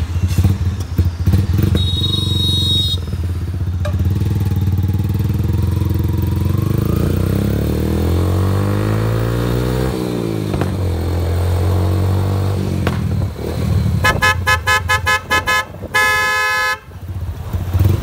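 Motorcycle engine running under way, its pitch rising and falling through gear changes. Near the end the newly fitted Minda horn sounds in a quick string of short beeps, then one longer blast.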